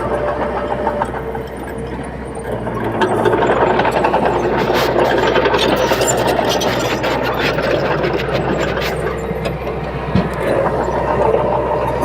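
Komatsu D21P bulldozer's diesel engine running under load. It grows louder about three seconds in, with rapid metallic clanks and rattles through the middle.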